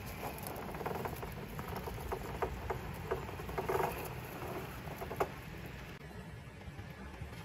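Traxxas TRX-4 scale RC crawler climbing over rock: its tyres and chassis scrabble and tap on the stone in irregular small clicks, the sharpest about five seconds in, over a steady low background rumble.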